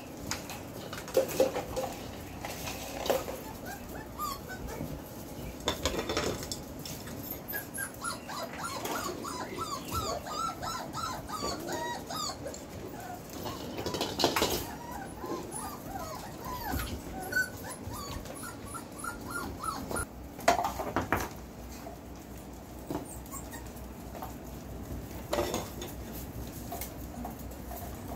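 A litter of four-and-a-half-week-old Belgian Malinois puppies whining and yipping as they play, with a busy stretch of many short, high squeaks in the middle. A few sharp yelps or knocks stand out above the rest.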